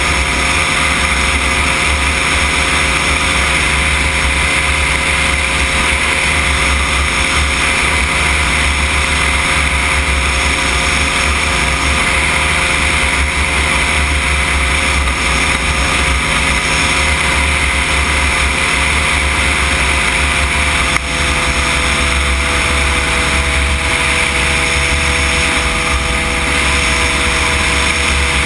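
Weight-shift microlight trike's engine and pusher propeller running steadily in cruise. The engine note drops slightly about twenty seconds in.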